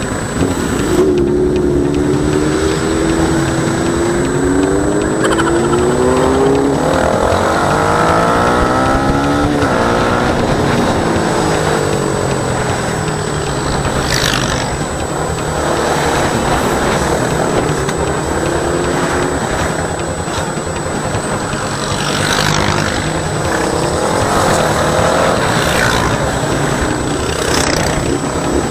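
Yamaha Sniper 150's single-cylinder engine running as the bike rides through traffic, its pitch climbing for several seconds as it accelerates, then falling and rising again with the throttle, over steady road and wind noise.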